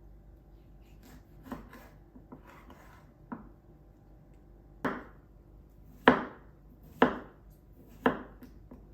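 Knife chopping on a cutting board: single strikes, about one a second, the last four loudest.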